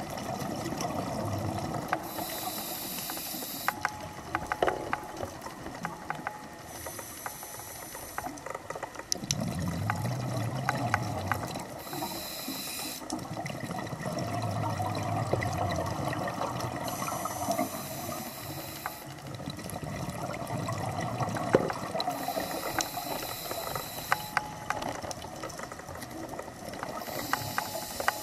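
A scuba diver breathing through a regulator underwater: a short hiss of inhalation about every five seconds, six in all, with bubbling exhalations between. Scattered sharp clicks throughout.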